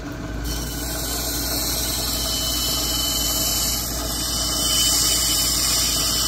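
Cabbing machine running, with an agate on a dop stick held against one of its grinding wheels: a steady motor hum, a hiss of stone on the wheel that comes in suddenly about half a second in, and a high steady squealing whine over it.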